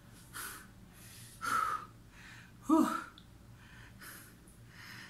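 A man breathing out hard in a few short separate puffs about a second apart, one around the middle with a bit of voice in it. He is still winded and sweating after a set of push-ups.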